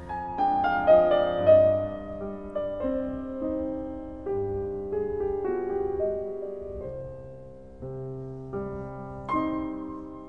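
Background piano music playing a slow melody of single notes, with deeper held notes from about seven seconds in.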